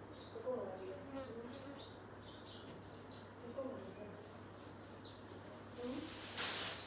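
Small birds chirping in quick, short, high notes that fall in pitch, repeated throughout. A brief rushing hiss comes near the end.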